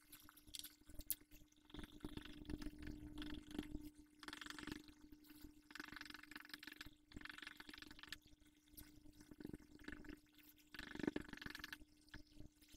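Faint, irregular scrubbing and rustling of a white eraser block rubbed over watercolour paper, with the paper handled between strokes, over a steady faint hum.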